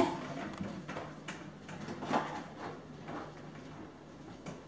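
Dishes clunking and knocking against each other as they are stacked inside a lower kitchen cupboard: a handful of scattered knocks, the loudest right at the start and another about two seconds in.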